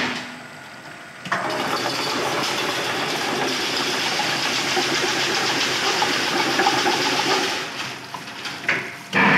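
Automatic chain-link fencing machine running a weaving cycle: its motor-driven wire-weaving head runs with a steady mechanical rattle that starts suddenly about a second in and dies away near the end.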